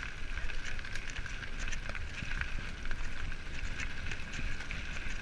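Mountain bike rolling along a gravel dirt track: steady tyre noise over the loose surface with scattered small clicks and rattles from the bike, and wind rumbling on the microphone.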